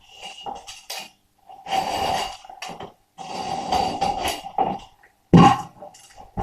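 Irregular rough scraping strokes, some short and two longer ones, with a single heavy knock about five seconds in.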